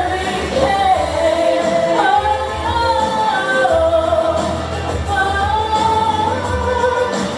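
Pop song with a woman singing long, sliding held notes over a steady bass beat.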